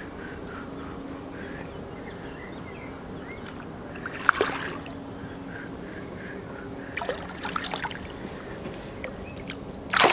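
Water splashing at the side of a boat as a hooked fish thrashes at the surface and a hand reaches in to grab it: three short splashes, the loudest near the end.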